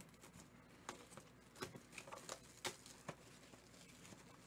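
Faint handling of a cardboard trading-card box as it is picked up and opened: soft crinkling with a scattering of about half a dozen small sharp clicks and taps.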